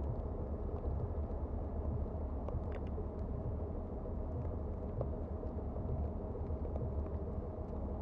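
Steady low rumble of blizzard wind buffeting the microphone, without letting up.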